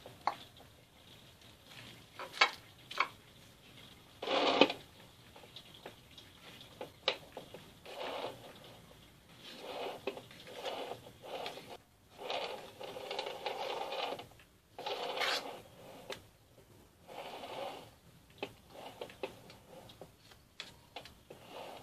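A metal spoon spreading cream over a sponge layer inside a metal cake ring, with scraping and occasional sharp clicks of the spoon against the ring.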